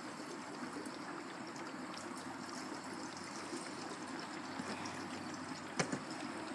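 Gasoline pouring from a can into a tractor's fuel tank: a faint, steady trickle as the tank is guzzling it down. A single short click about six seconds in.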